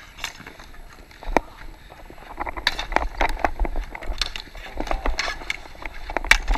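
Dek hockey play: sticks and ball clacking against each other and the plastic tile court, with shoes scuffing. The clacks are irregular, coming thick and fast from about halfway in, over a low rumble of wind and movement on the microphone.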